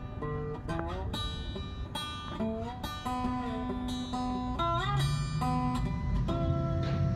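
Background music: a guitar playing single plucked notes, several of them sliding up in pitch.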